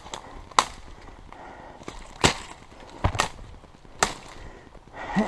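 A blade chopping through brush and small wood: about five sharp chops, roughly a second apart.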